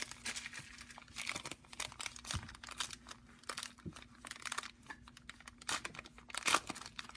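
Foil trading card pack wrapper being torn open and crinkled in irregular rustles, over a faint steady hum.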